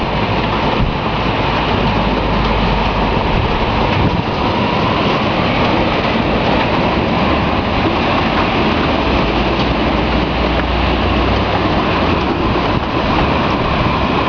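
Storm-force wind blowing hard: a loud, steady rushing roar with low rumbling gusts buffeting the microphone.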